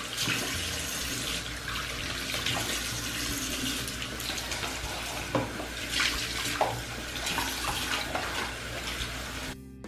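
Bathroom sink faucet running in a steady stream, with splashing as hands, a toothbrush and a small plastic container are rinsed under it and a few brief knocks along the way. The water sound cuts off abruptly near the end.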